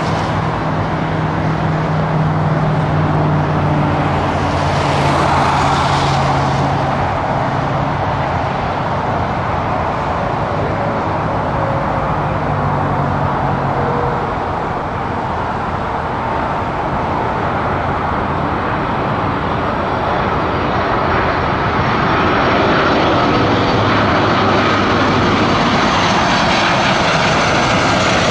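Airbus A330 airliner on final approach, its jet engines a steady rush that grows louder about three-quarters of the way through as it draws close, with a faint high fan whine coming in near the end.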